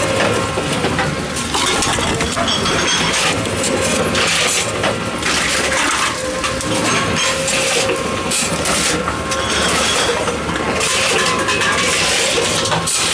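Tomra T-63 reverse vending machine running with a steady motor hum, under irregular crackling and clattering as plastic bottles are taken in and handled.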